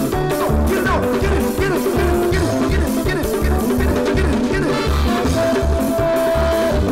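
A live band playing an upbeat highlife groove, with a steady pulsing bass beat under held melodic notes and no vocals.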